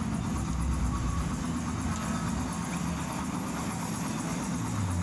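Amplified music from a stage sound system, heard mostly as a steady heavy bass rumble with muddy sound above it.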